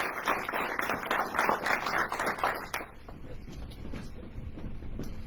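Audience applauding, a dense patter of many hands clapping, that stops about three seconds in; a faint low room rumble remains.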